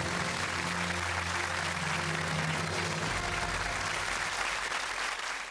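Studio audience applauding over the game show's closing music, with sustained low notes underneath; it fades out near the end.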